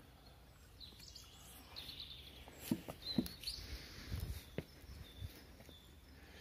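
Footsteps through leaf litter and fallen branches, with a few sharp twig cracks about halfway through, while small birds chirp in the background.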